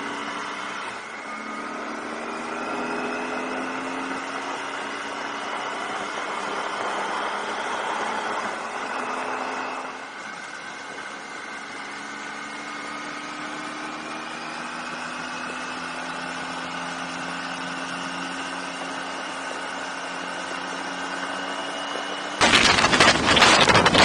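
Triumph Tiger 800 XCa's inline-three engine running on the road, its note gliding slowly up and down with the throttle and easing off about ten seconds in. Near the end, loud wind buffeting on the microphone suddenly covers it.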